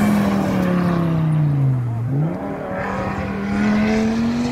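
Audi quattro rally car going past at speed. Its engine note falls for about two seconds, jumps up sharply a little after two seconds in, then climbs steadily as the car accelerates away up the road.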